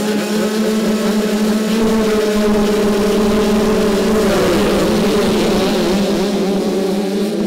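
A gate full of small two-stroke motocross bikes held at high revs on the start line, a steady chorus of engine notes. About four seconds in the notes break up and the engines rev away as the bikes launch off the line.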